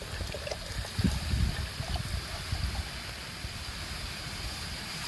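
Water pouring from a bottle into the pot of a Coleman FyreStorm PCS cook set, a steady trickle and splash.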